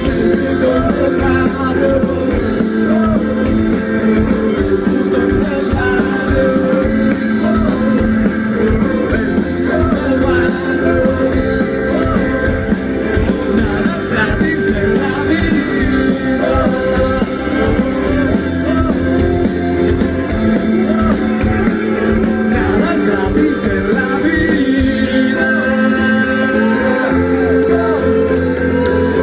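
Live rock band playing through a concert PA: electric guitars, bass and drums with singing, heard from among the audience.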